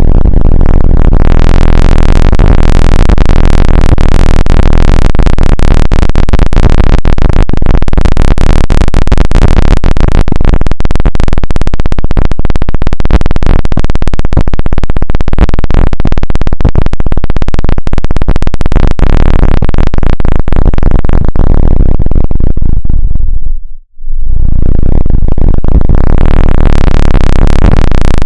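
Loud, harsh synthesized electronic noise: a dense buzzing drone made of rapid pulses. Its high end fades away into a brief cut-out near the end, then it starts up again.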